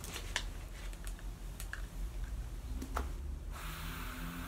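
Irregular light clicks and taps, with a faint hiss coming in about three and a half seconds in.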